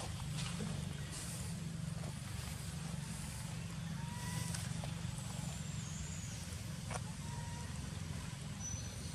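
Steady low rumble of a distant engine, with a few faint short high chirps and light clicks over it.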